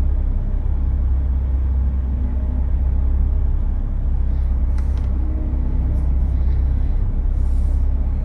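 A steady low background hum, with a few faint small clicks about five and six seconds in.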